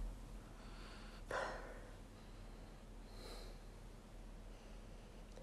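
A person sniffing, smelling eau de cologne sprayed on the back of her hand: a short inhalation through the nose about a second in, then a fainter one a couple of seconds later.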